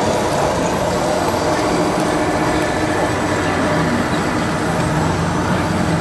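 Steady diesel-like engine sound from radio-controlled scale-model construction machines, over the continuous rush of stream water.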